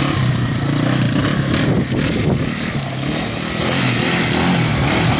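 Yamaha sport quad's (ATV's) engine revving up and down as it is spun in tight circles on grass, trying to do donuts.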